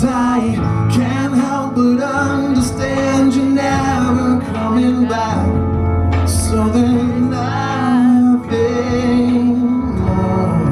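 Live rock band playing: electric guitar and drums, with a man singing the lead vocal in two phrases.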